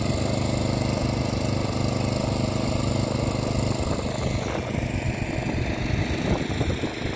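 Portable petrol generator running steadily with an even engine hum. Some irregular knocking and clatter join in during the second half.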